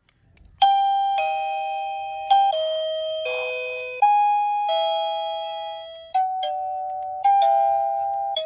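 Satisure wireless doorbell receiver playing one of its chime melodies: a run of bell-like notes, each struck and fading, starting about half a second in.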